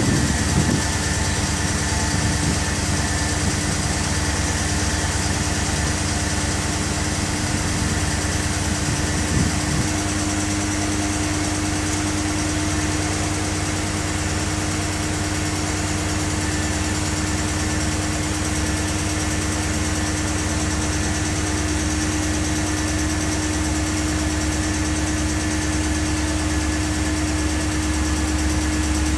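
BMW engine idling steadily, with the fast light ticking of a noisy hydraulic lifter.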